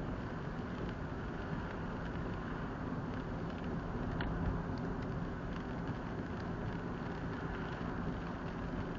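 Car interior noise while driving on a wet road: steady tyre hiss and road rumble with a low engine hum, heard from inside the cabin. A single short click about four seconds in.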